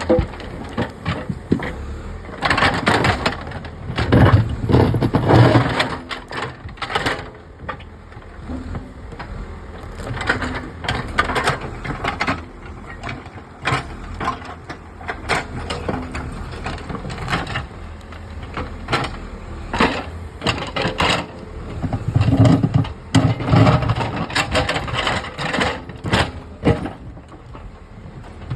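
An engine-driven machine, taken to be a JCB-type digger, working with many irregular clanks and knocks over a low engine rumble. The engine swells heavier twice, about four seconds in and again about twenty-two seconds in.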